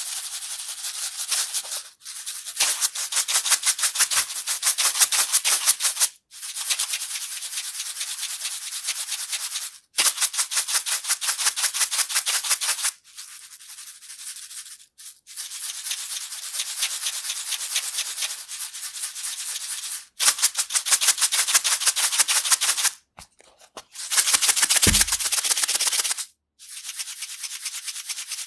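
Sesame seeds shaken in a plastic box, rattling in a fast, even back-and-forth rhythm. The shaking comes in spells of a few seconds with short pauses between them, one spell near the middle quieter than the rest.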